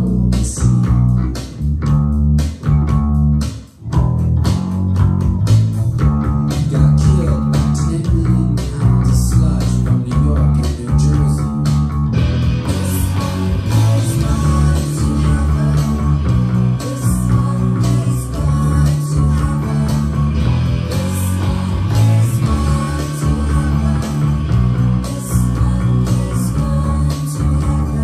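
Electric bass guitar picked with a plectrum, playing a steady, repeating rock bassline along with a band recording. About twelve seconds in, cymbals and the rest of the band fill out the sound.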